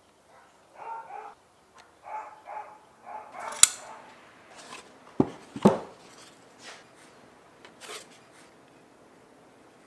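Workbench handling sounds while silicone sealant is squeezed from a small tube onto the ends of LED strips: a few short soft sounds, then a sharp click and, about a second and a half later, two loud knocks in quick succession.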